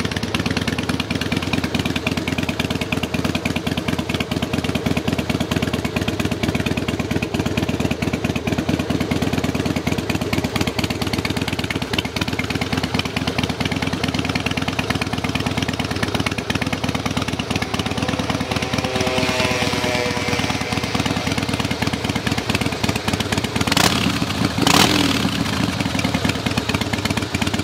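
Harley-Davidson Softail Night Train's V-twin engine idling steadily. Near the end there are two sharp knocks less than a second apart.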